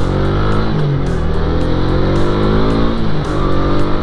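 Motorcycle engine running under way while the bike is ridden, its pitch rising and falling with the revs.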